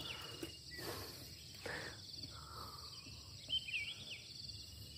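Insects chirring steadily in a high, fast pulsing drone, with a few short bird chirps about three and a half seconds in.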